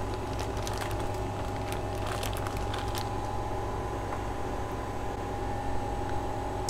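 Plastic grow bag crinkling and crackling as a pioppino mushroom cluster is pulled free and handled, over a steady machine hum; the crackling stops about three seconds in.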